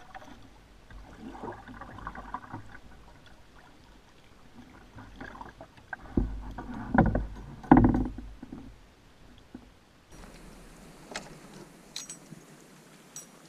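Double-bladed paddle strokes dipping and splashing beside a solo canoe, irregular, with a few louder strokes in the middle. About ten seconds in, the sound drops to a quieter hiss of water with a few light clicks.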